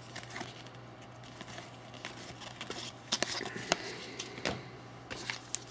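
Hockey trading cards being flipped through by hand: a few short, scattered clicks and slides of card stock, over a faint steady low hum.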